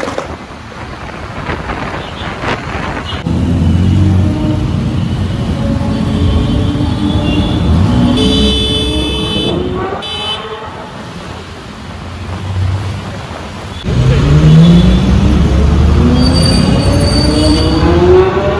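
Vehicle engine accelerating hard twice, its pitch rising steadily for several seconds each time, in heavy street traffic. Car horns honk over it in two longer stretches.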